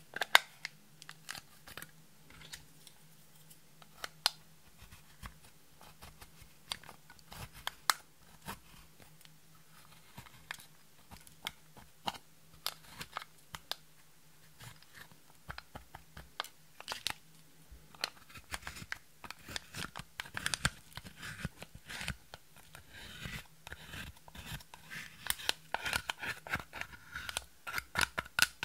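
Pressed eyeshadow being scraped and crumbled out of a plastic makeup compact with a plastic spatula: scattered sharp clicks and crunches, with a loud click right at the start, thickening into dense scratchy crunching over the last ten seconds.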